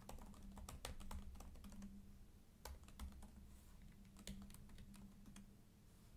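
Faint keystrokes on a computer keyboard: quick, irregular runs of typing clicks.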